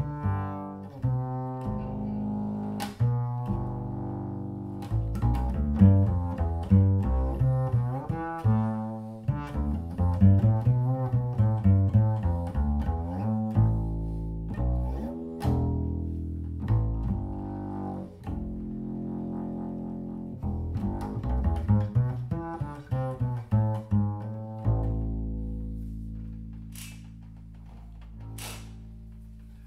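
Shen Gemunder willow flatback double bass with well-used Obligato strings, played pizzicato: a run of plucked notes, then one low note left to ring and fade over the last few seconds. Two short clicks near the end.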